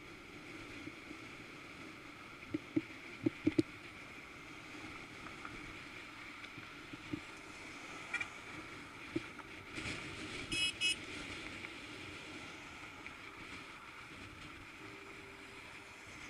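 Steady rushing road noise of a bicycle ride in traffic, with a few sharp knocks about three seconds in. About ten and a half seconds in, a vehicle horn honks twice in quick short blasts, a honk aimed at the cyclist.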